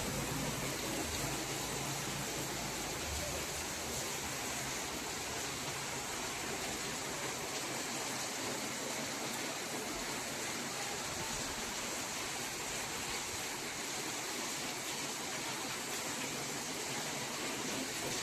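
Heavy rain pouring down steadily, an even dense hiss with no let-up. A low rumble runs under it for the first few seconds.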